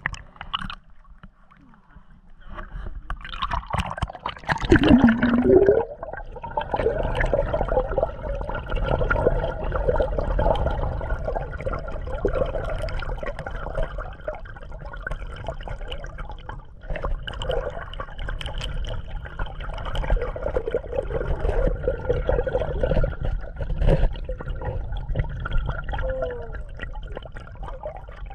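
Muffled underwater water noise from a camera held under a lake's surface. There is a loud rush and gurgle as it goes under about four or five seconds in, then a steady low rumble of moving water with faint steady tones over it.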